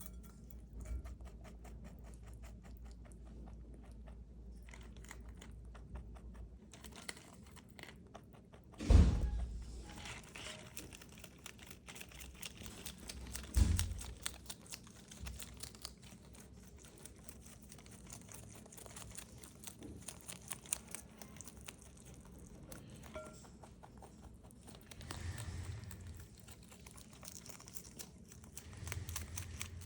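A rabbit chewing crisp bok choy, a steady run of fast small crunches close to the microphone. Two loud thumps break in about nine and fourteen seconds in.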